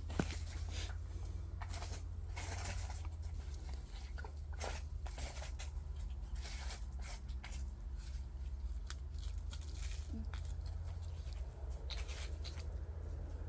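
Potting soil being spread and scraped by hand over plastic seedling trays to cover sown sesame seed: intermittent rustling and scraping over a steady low hum.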